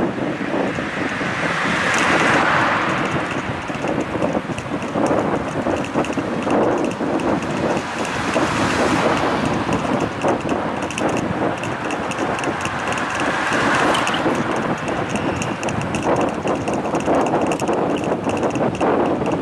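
Wind rushing over the microphone of a moving bicycle ride, over steady road noise. Traffic noise swells up three times, each rise lasting a couple of seconds.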